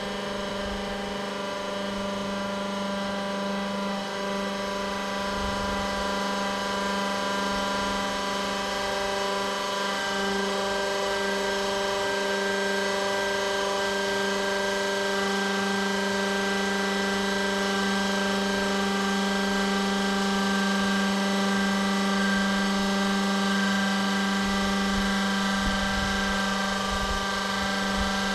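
Electric diesel transfer pump running steadily with an even hum, pumping fuel through a metered nozzle into the generator's tank on a slow fill.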